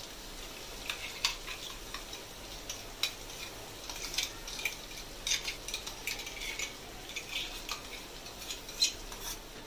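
Metal spatula scraping and tapping against a metal kadai in short, irregular clicks as a thick paste is worked into frying masala, over a faint sizzle.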